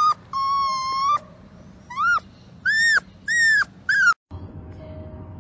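Small puppy howling with its head tipped back: one long, level, high-pitched howl followed by four short howls that rise and fall. The howls stop abruptly about four seconds in.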